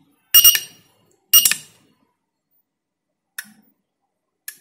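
Two short electronic beeps about a second apart from the controller board's piezo buzzer as a button is pressed, then two relay clicks about a second apart as the vending-machine controller switches its relays to start a half-cup tea cycle.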